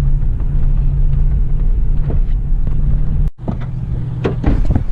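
Four-wheel-drive ranch vehicle running steadily with a low engine hum as it drives. A little over three seconds in the sound cuts off abruptly, and then come several sharp knocks and rattles.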